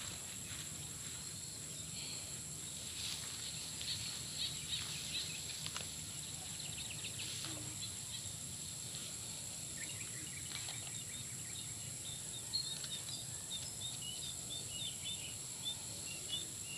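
Rural outdoor ambience: a steady, high-pitched insect drone with a faint low hum of wind or distant noise, and a bird chirping rapidly and repeatedly from about halfway through.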